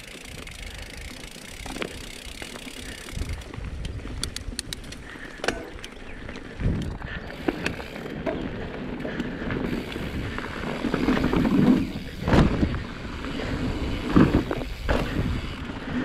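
Mountain bike rolling over dirt and gravel single track: the tyres run over the ground, and the bike rattles and knocks over bumps. The noise and the knocks grow louder in the second half.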